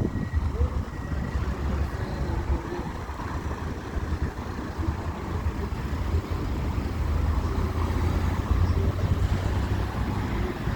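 City street traffic noise: a steady low rumble of passing road vehicles.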